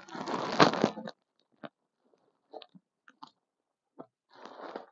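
Clear plastic packaging around a folded kurta crinkling and rustling as it is handled: a loud burst of crinkling in the first second, then a few scattered crackles, and more rustling near the end.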